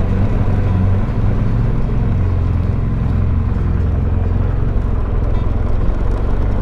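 BMW R1200GS flat-twin (boxer) engine running steadily at low speed through a loud exhaust.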